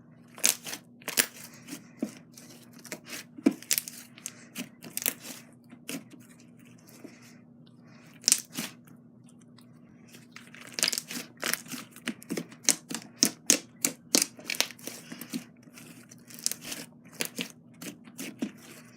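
Hands kneading and squishing butter slime (glossy slime with clay mixed in), making irregular sticky clicks and pops in uneven bursts, with a faint steady hum underneath.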